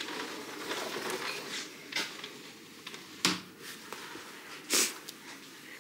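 Handling noise and footsteps in a small room: rustling, a sharp click a little over three seconds in, and a short brush of jacket fabric against the microphone near the end.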